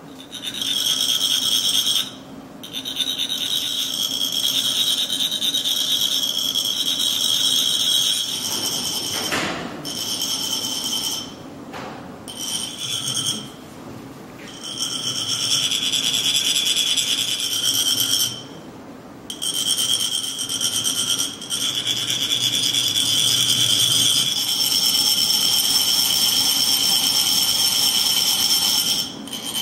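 Metal chak-pur funnels rasped along their ridged shafts, a steady high-pitched grating buzz that vibrates coloured sand out for a sand mandala. It comes in long bouts broken by several short pauses.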